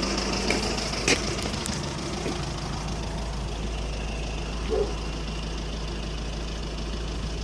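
2007 Skoda Octavia vRS's 2.0 PD TDI diesel engine idling roughly at tickover with a misfire, which the owner suspects is an injector problem. A sharp click sounds about a second in.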